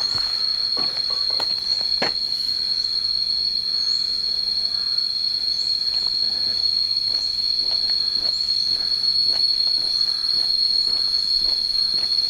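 Insects droning in a loud, steady, high-pitched whine, with a short rising chirp repeating about every second and a half.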